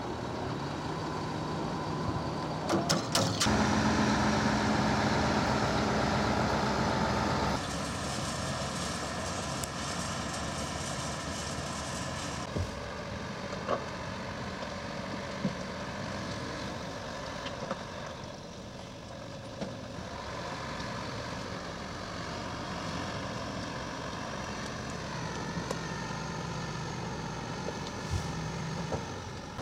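Heavy diesel engine of a large multi-axle mobile crane running, getting louder for about four seconds early on before settling back to a steady run. There are a few sharp clicks just before the louder stretch.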